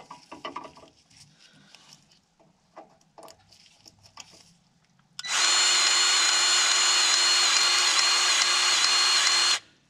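A few light clicks and handling noises, then about halfway through a powered grease gun runs for about four seconds with a steady motor whine. It is pumping new grease into a freshly installed planter gauge wheel bearing. It stops abruptly near the end.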